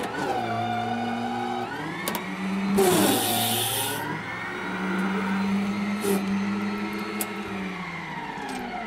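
Electric micro loader's motors whining under load as it digs into a sand pile and lifts the bucket, the whine rising and falling in pitch as the drive and hydraulics strain. A loud hiss about three seconds in and a few sharp clicks.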